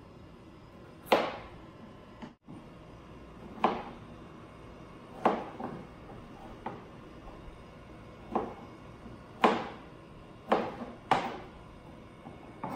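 Kitchen knife chopping through zucchini onto a cutting board: single sharp knocks at uneven spacing, a second or two apart, about eight in all.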